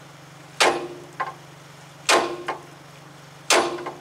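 Hammer striking the upper part of a 2009 Toyota Tacoma's steering knuckle three times, about a second and a half apart, each blow ringing like struck steel. The blows shock the upper ball joint stud loose from its taper in the knuckle.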